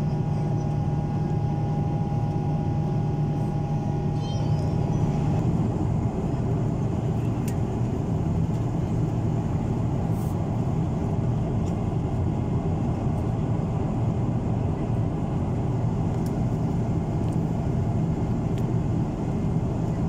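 Steady jet airliner cabin noise in flight, heard from a window seat beside the engine: a constant low engine drone under the rush of air. A thin steady tone runs through it and stops about five seconds in.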